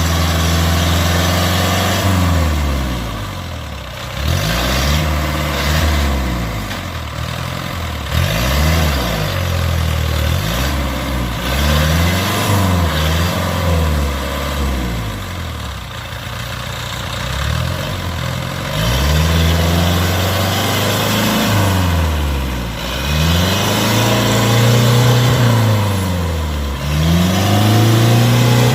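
Engine of a tracked rice-field machine revving up and down over and over, its pitch rising and falling every second or two, as it labours through deep mud.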